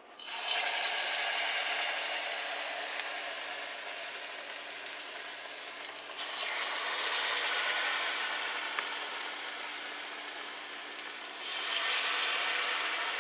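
Batter-coated potato balls sizzling as they deep-fry in hot oil. The sizzle flares up each time a fresh ball is dropped in: at the start, about halfway through, and again near the end.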